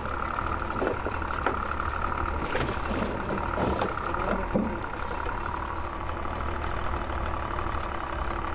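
Yamaha outboard motor idling steadily while the boat sits still, with a few light clunks about halfway through.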